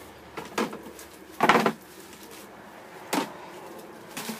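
Packing noise as plastic crates and bagged bread are handled: three short bumps or rustles, the loudest about a second and a half in.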